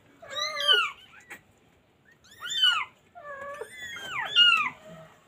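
Newborn kittens mewing: about four short, high-pitched calls that each fall in pitch, some overlapping, with quiet gaps between.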